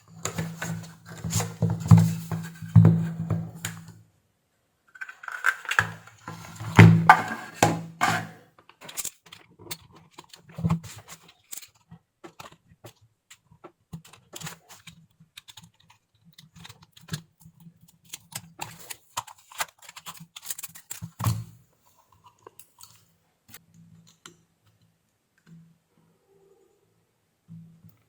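Plastic case of a switch-mode power adapter being pried open and handled: dense clicking, cracking and scraping for the first several seconds, then scattered single clicks.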